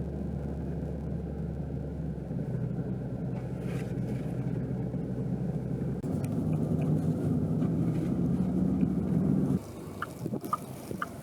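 Motor vehicle engine running with a steady low rumble that stops abruptly about three-quarters of the way through. A few short high chirps follow near the end.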